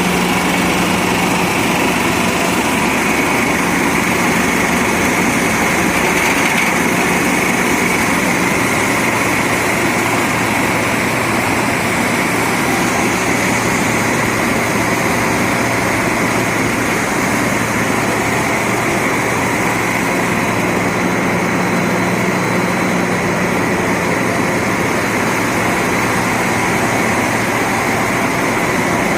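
Machinery of an artificial-rice extrusion production line running steadily: a continuous mechanical din over a constant low motor hum.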